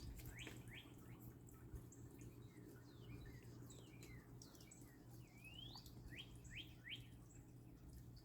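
Faint birds chirping: many short calls that sweep quickly up or down in pitch, some overlapping.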